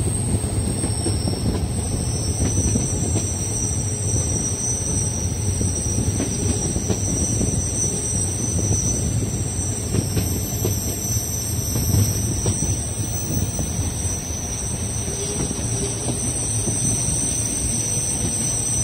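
Metre-gauge Bernina railway train heard from a carriage window as it rounds a tight curve: a steady rumble of wheels on rail under a continuous high-pitched wheel squeal, the flange squeal of the sharp spiral curve.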